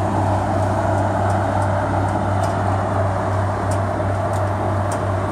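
Inland cargo ship's diesel engine droning steadily with an evenly pulsing low hum and a rushing noise above it as the ship turns close by.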